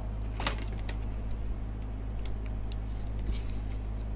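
A few faint crinkles and clicks of a thick trading card being handled in a clear plastic sleeve and rigid holder, over a steady low hum.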